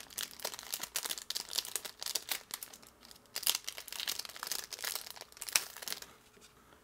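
Thin clear plastic crinkling and rustling in the hands: PET screen protector sheets and their plastic packaging being handled and pulled apart, in many irregular small crackles. The handling stops about six seconds in.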